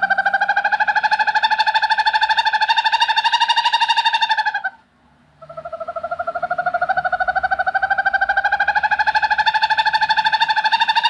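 Owl calling with a long, fast-pulsed trill that rises slightly in pitch; it breaks off about four and a half seconds in, and after a short pause a second trill starts and runs on.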